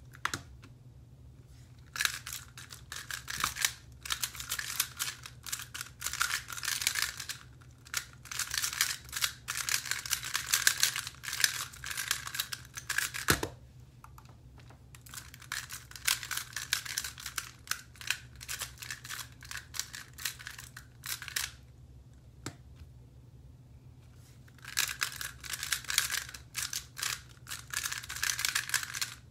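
Square-1 puzzle being turned rapidly by hand: dense runs of clicking and clacking plastic layers, broken by pauses of a second or more, with a single thump near the middle.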